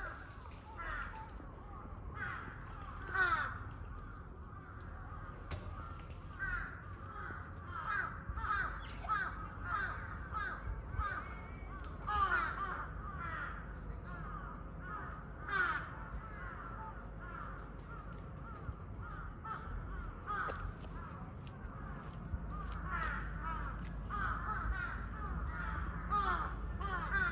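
Malayan tapir calling: a long run of short, high squeaky cries, each falling in pitch, with a few louder shrill ones about 3, 12 and 16 seconds in.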